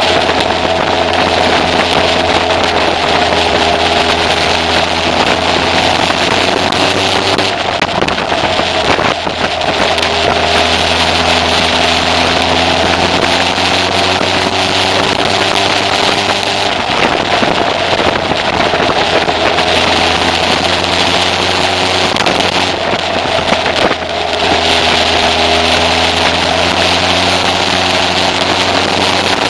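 Kawasaki ZZ-R1100's carbureted inline-four engine pulling under way, its pitch climbing slowly and falling back three times, under heavy wind and road noise.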